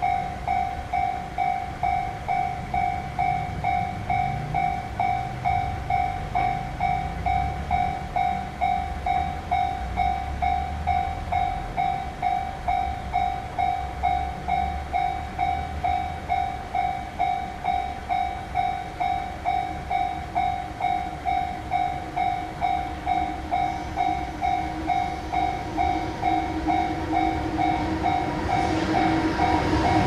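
Japanese railroad crossing's electronic warning bell ringing steadily, one pitched ding repeating about twice a second. Near the end, the approaching freight train's electric locomotive comes in as a low hum growing louder.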